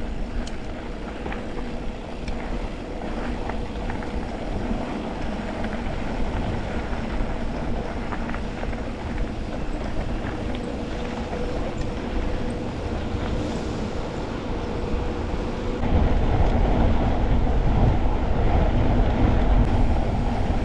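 Wind buffeting the microphone over rolling noise while riding a mountain bike on a dirt trail, with a faint steady hum. The wind rumble gets suddenly louder about sixteen seconds in.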